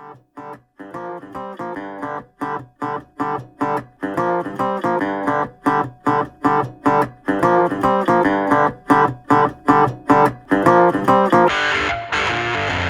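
Music: guitar playing a steady rhythm of short, clipped chords, fading in and growing louder; near the end a fuller, distorted layer comes in.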